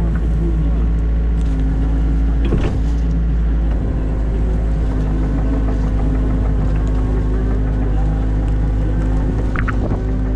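New Holland Kobelco E50.2 mini excavator's diesel engine running steadily as the machine works, with a couple of brief knocks from the machine, one about two and a half seconds in and one near the end.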